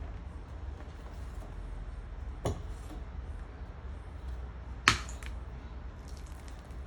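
Two sharp knocks of kitchen utensils on a hard surface, about two and a half seconds apart, the second louder, over a low steady hum.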